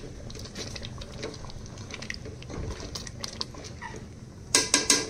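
Spoon stirring and scraping chicken and masala in a cooking pan while it fries, with scattered light clicks, then a quick run of sharp clinks near the end.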